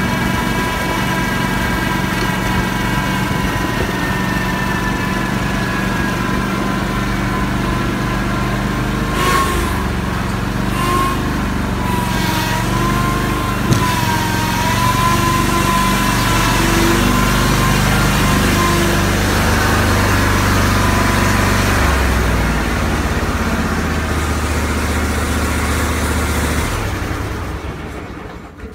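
Scag Cheetah zero-turn mower's 34-horsepower engine running steadily under way, its pitch wavering slightly midway, with a couple of brief knocks. Near the end the engine sound dies away as it is shut off.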